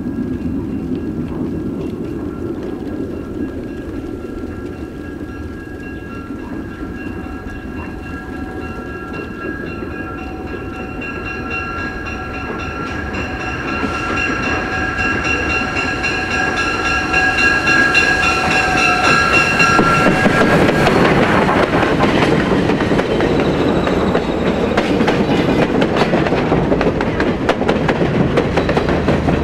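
Steam locomotive TVRM 610, a 2-8-0, with its train coming through a tunnel: a low rumble builds, and a long steady chime whistle blows from about a third of the way in. About two-thirds of the way through, the sound turns into a loud rush as the engine and passenger cars roll past, with wheels clacking over the rail joints.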